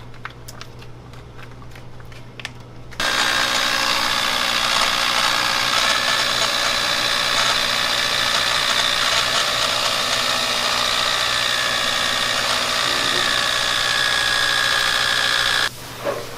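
An electric stirring mixer's motor running steadily under load as its paddle churns mayonnaise into a tub of thick red sauce. It switches on about three seconds in and cuts off suddenly near the end, after a few light clicks.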